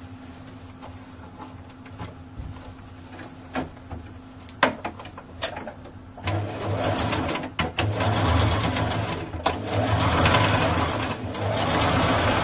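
Brother domestic sewing machine: a few sharp clicks and taps for the first half, then the machine stitching from about six seconds in, in several runs broken by short pauses.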